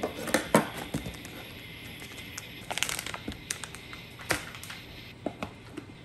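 Food-prep handling sounds: crinkling and rustling as fish cakes are taken out of their container, then a serrated knife slicing fish cake and knocking on a plastic cutting board in single sharp taps in the second half.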